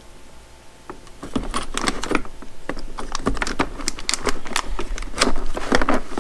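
Copper battery clamps and their cables clinking and clattering as they are handled and packed into a hard plastic case. Irregular metallic clicks and rattles start about a second in.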